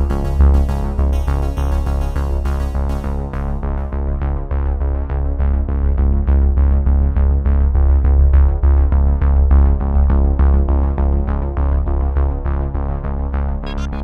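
Background electronic music with synthesizer, a heavy bass and a steady beat. The treble drops away about four seconds in and comes back just before the end.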